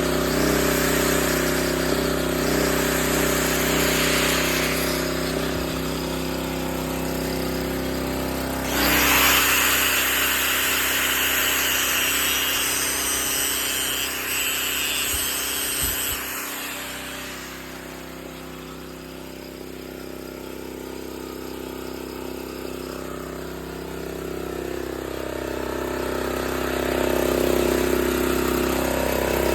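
Honda GX240 8 hp generator engine running steadily while an electric grinder powered from it works on metal. The grinding is loudest from about nine to sixteen seconds in, a light load on the engine, then fades out while the engine runs on.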